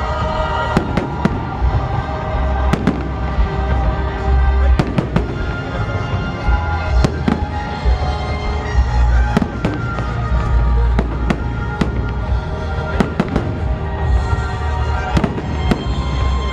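Fireworks bursting in quick, irregular succession, with a loud bang every fraction of a second, over music with held notes and a heavy bass.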